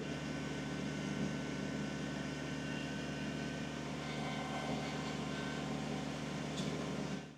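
Kubota BX23S compact tractor's three-cylinder diesel engine running steadily.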